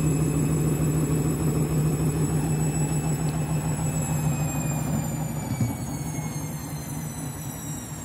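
Candy Grand'O Vita front-loading washing machine on the 400 rpm final spin of its duvet cycle: a steady motor hum and drum rumble with a faint high whine. About five seconds in there is a single light knock, and the whine then falls in pitch while the sound gradually quietens, as the spin slows.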